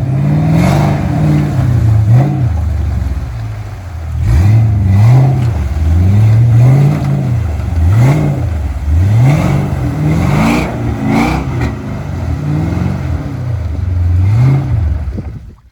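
Chevrolet 6.0 L Vortec V8 in a square-body 4x4 pickup, revved up and down over and over as the truck works along a muddy road, about once every second or two. It cuts off suddenly near the end.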